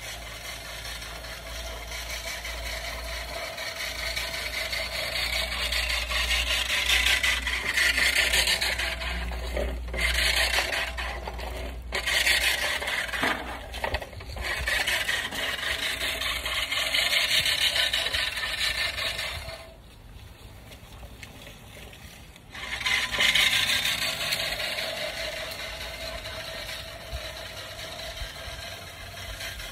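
Manual push reel mower cutting grass: the spinning blades make a whirring rasp that swells and fades as it moves back and forth. It breaks off briefly a few times and drops away for a couple of seconds about two-thirds through before starting up again.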